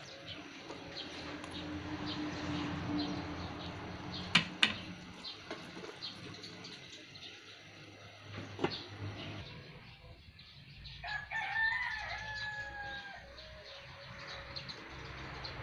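Metal spatula stirring in a wok, with two sharp clinks against the pan about four seconds in and another near nine seconds. About eleven seconds in, a rooster crows once, a call of about two seconds.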